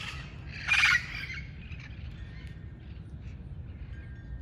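Red-crowned parrot giving one loud harsh squawk about a second in, followed by fainter squawks and chirps from the flock.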